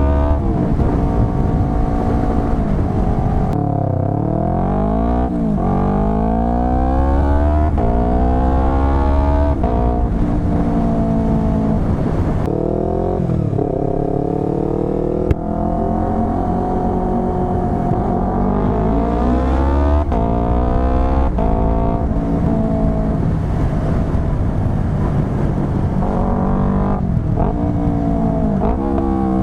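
Yamaha R3's parallel-twin engine through a full Akrapovic exhaust under riding. The pitch climbs and falls again and again, with several quick drops as it changes gear.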